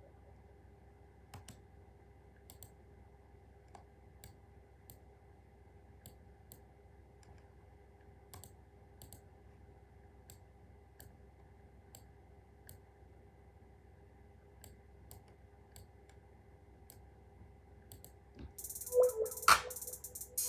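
Faint, irregular clicks of buttons being pressed over a low steady hum, as a drum pattern is programmed. Near the end a drum-machine beat starts playing loudly.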